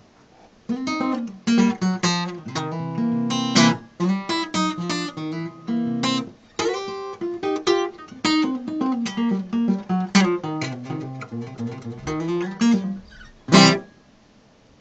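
Steel-string acoustic guitar fingerpicked alone in a blues instrumental break: single-note lines and bass notes starting a moment in, then one loud, sharp stroke across the strings near the end.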